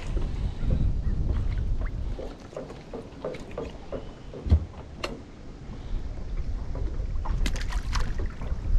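Wind gusting on the microphone, dropping away in the middle, with scattered small clicks and one sharp knock about four and a half seconds in as a crappie is handled and unhooked in a small boat.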